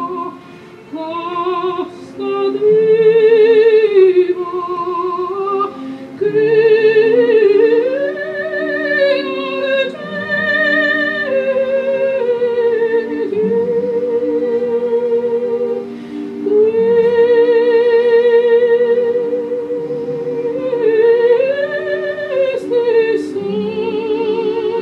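Recorded operatic soprano singing long held notes with a wide vibrato over a sustained accompaniment, played back from a laptop.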